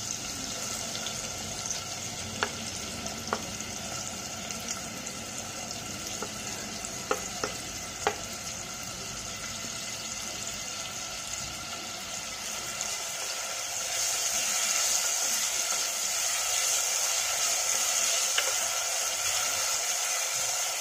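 Chopped onion frying in hot oil with cumin and mustard seeds: a steady sizzle, with a few sharp clicks in the first half, getting louder about two-thirds of the way in.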